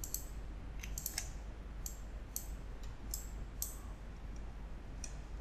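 Computer mouse clicking about eight times at irregular intervals, some clicks in quick pairs, over a faint steady low hum.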